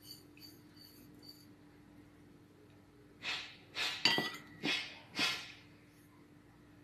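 A metal spoon scraping and clinking against a glass mixing bowl as grated squash is stirred, with faint ticks at first and then a run of about five louder scrapes, one with a sharp clink, around the middle.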